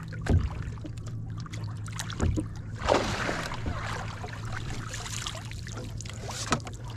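Lake water splashing and dribbling at the boat's side as hands work in the water and a wet fish-measuring board is lifted out, with the loudest splashing about three seconds in and again around five seconds. A steady low hum of the boat's motor runs underneath, with a few light knocks against the hull.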